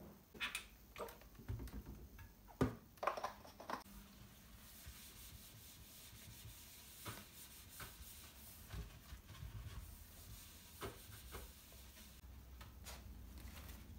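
A sponge rubbing and scrubbing over a stainless steel sink and drainer, with a few sharp knocks and clicks against the metal in the first few seconds.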